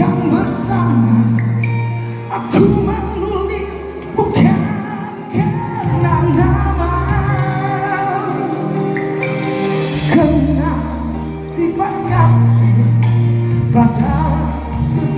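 A band plays a Malay pop song, with a singer's voice over sustained bass notes.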